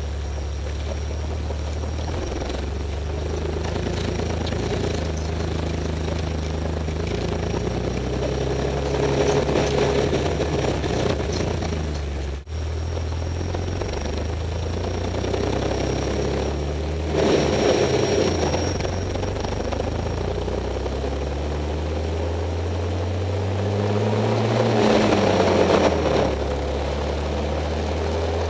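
Drivetrain of a 2003 Jeep Wrangler with an NV3550 five-speed and NP231 transfer case, heard from underneath while driving: a steady low drone with louder spells, rising then falling in pitch near the end. It is the drivetrain noise that the owner guesses comes from the transmission.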